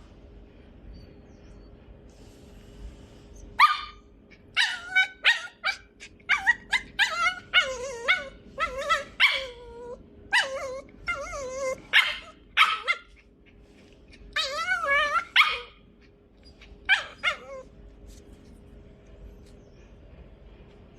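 Puppy yipping and whining: a run of short, high-pitched yips and barks mixed with longer wavering whines, starting a few seconds in and stopping a few seconds before the end. A faint steady hum runs underneath.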